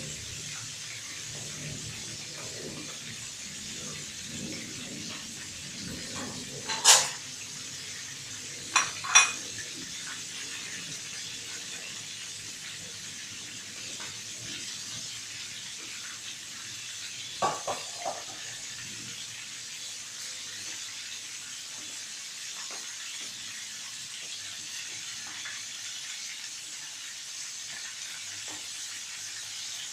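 Oil sizzling steadily around a whole fermented tilapia deep-frying in a pan, a constant bubbling hiss. A few sharp clinks cut through it about seven seconds in, twice near nine seconds, and again around eighteen seconds.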